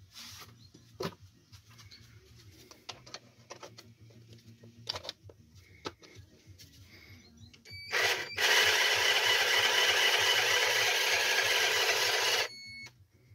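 24V cordless mini chainsaw, with a small drill-type electric motor, briefly blipped and then running for about four seconds, its chain spinning on the bar: a steady whine over a loud rushing chain noise that cuts off suddenly. The saw is running again after a broken motor lead was resoldered. Before it come small clicks and knocks as the battery is fitted and the saw is handled.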